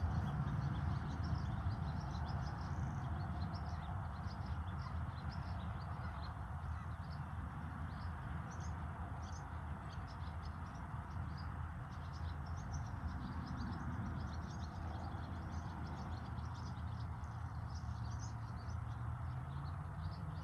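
Steady wind rumbling on the microphone, with many short, faint, high chirps scattered through it.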